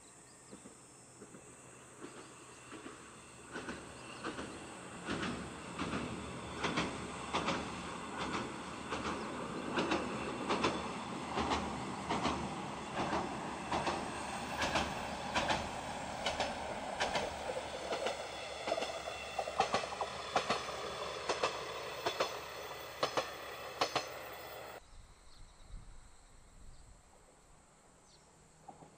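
KiHa 100 series diesel railcar crossing a girder railway bridge. A steady rumble builds from about three seconds in, with regular clacks of the wheels over the rail joints. The sound cuts off suddenly near the end.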